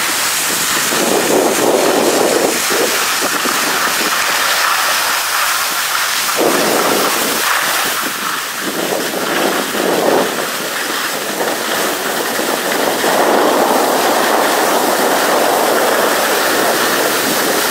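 Skis sliding and scraping over packed snow, with wind rushing on the microphone of a skier moving downhill. The noise is steady and loud and swells every few seconds.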